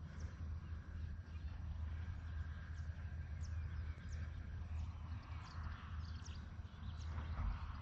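Short high bird calls, each falling in pitch, chirping every half second or so over a steady low rumble and the rustle of footsteps through grass.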